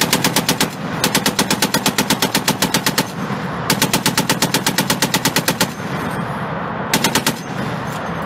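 Tripod-mounted Browning M2 .50-calibre heavy machine guns firing in bursts of about nine or ten shots a second: a short burst at the start, two longer bursts of about two seconds each, and a brief burst near the end.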